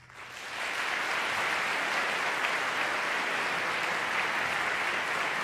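Concert audience applauding, the clapping swelling up within the first second and then holding steady.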